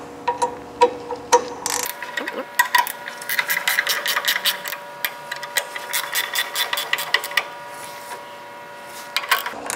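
A 9/16 wrench loosening the locking bolts on the pillow block of a bandsaw's upper blade wheel: a long run of quick metallic clicks, densest and most even in the middle, thinning out near the end.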